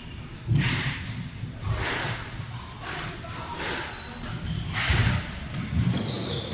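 About five separate thuds and knocks at uneven intervals, echoing around a large squash hall, with faint murmured voices between them.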